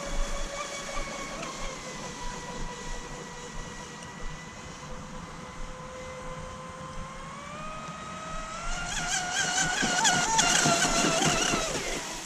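Electric RC speedboat's motor and propeller whining steadily at part throttle. About seven seconds in the whine rises in pitch, warbles higher and louder as the boat speeds up, then drops back near the end.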